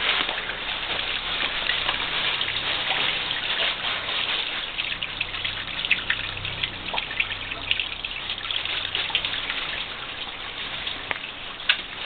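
Spring water trickling and splashing over rock ledges in a small waterfall: a steady splashy hiss with many small drips and splashes through it.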